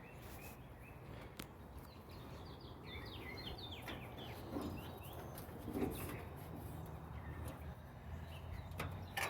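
Small birds chirping in the background, a quick run of short falling notes about three to four seconds in, over a low steady hum and a few soft knocks.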